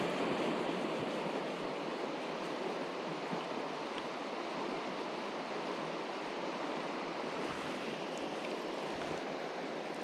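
Mountain stream water rushing steadily over rocks, a constant even roar.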